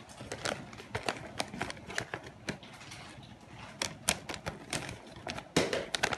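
Gift wrapping paper crinkling and rustling as wrapped parcels are handled, in irregular crisp crackles, with a louder crackle about five and a half seconds in.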